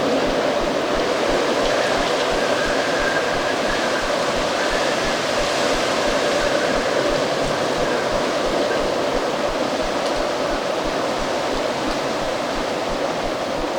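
Strong autumn wind blowing steadily, with a faint high whistle in the gusts.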